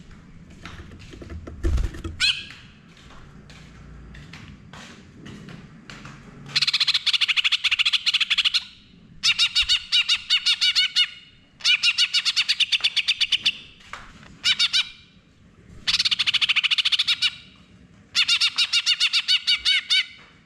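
Caged male greater green leafbird (cucak ijo) singing in full voice. Scattered short chirps and calls come first, then from about six seconds in, five bouts of about two seconds each of rapid-fire repeated notes: the 'full nembak' song of a leafbird in top singing form ('gacor').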